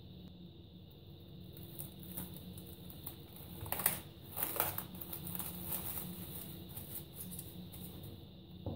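Plastic cling film crinkling and crackling in a run of short bursts as it is stretched over a glass bowl of dough and pressed down around the rim, loudest in the middle; a low steady hum runs underneath.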